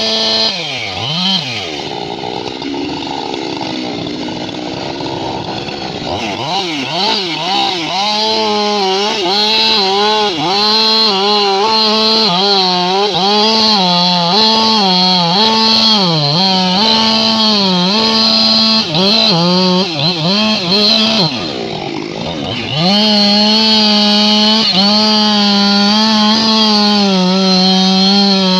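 Husqvarna two-stroke chainsaw running at high revs, its pitch dipping again and again as it works through a cut. The revs fall away sharply about a second in and again near 21 s, then climb back to full throttle.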